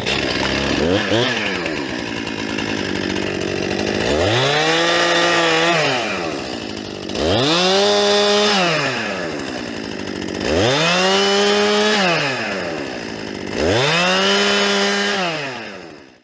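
Stihl MS 261 two-stroke chainsaw running, revved up and held at full throttle four times, about every three seconds, and dropping back in between, as when bucking logs into rounds. The sound starts and stops abruptly.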